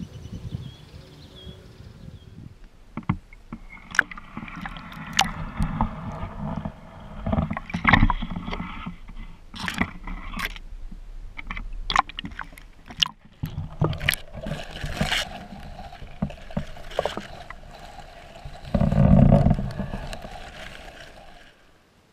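Water sloshing and splashing right at the microphone of a camera at the lake's surface, with many sharp knocks and clicks and a louder rush of water about nineteen seconds in.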